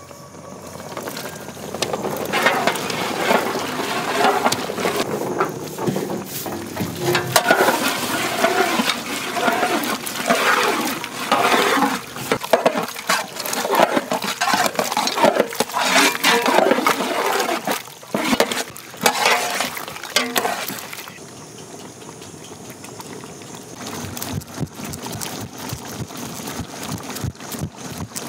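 Diced bottle gourd splashing from a metal plate into a large pot of simmering mutton bone gravy, then stirred through with a long ladle, the liquid sloshing and the pieces knocking against the pot. It goes quieter for a few seconds near the end.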